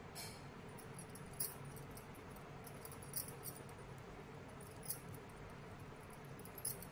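Knitting needles clicking lightly against each other as stitches are worked in thick yarn: about six separate sharp ticks, a second or so apart, over a steady faint hum.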